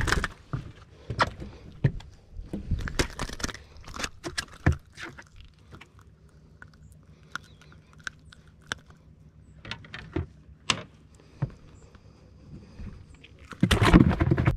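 Handling noise from a freshly landed fish being unhooked on a fiberglass boat deck: scattered clicks, knocks and rattles, with a louder burst of rustling noise near the end.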